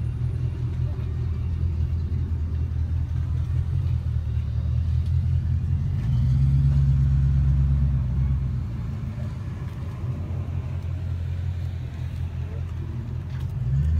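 Classic Chevrolet C10 pickup's engine idling with a steady low exhaust note, swelling louder for a couple of seconds about six seconds in.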